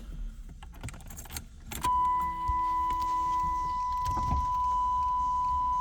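1991 Pontiac Firebird's electric power window motor running the glass up and down, a steady whine starting about two seconds in, after a few clicks.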